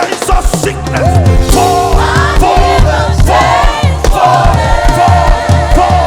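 Live gospel band and choir: voices holding long, wavering notes over a steady beat of drums and bass.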